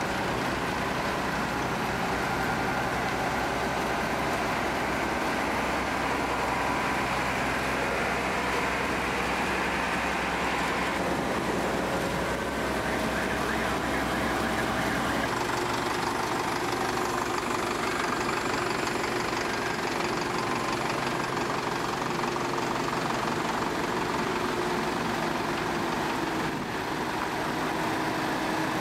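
Diesel engines of farm machinery running at low speed as they pass: a combine harvester, then tractors pulling trailers. The engine note changes about halfway through as a different machine goes by.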